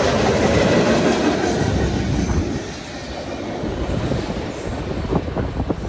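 Freight cars of a passing train rolling by, steel wheels rumbling on the rails. The noise drops about two and a half seconds in as the end of the train passes. After that comes a quick run of sharp clicks from wheels crossing rail joints.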